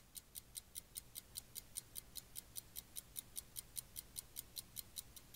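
Clock ticking as an intro sound effect: a fast, even run of crisp, high-pitched ticks, about five a second, over a faint low hum.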